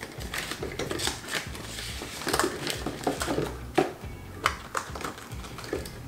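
Paper money and envelopes rustling, with irregular crisp flicks as bills are handled and counted, over background music.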